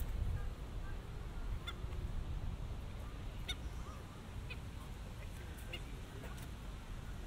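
Geese honking in scattered short calls over a steady low background rumble.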